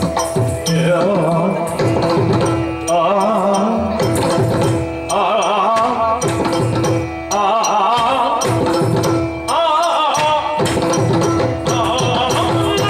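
Yakshagana music: the bhagavata sings long ornamented phrases that waver in pitch over a steady drone, accompanied by strokes of the maddale and chende drums.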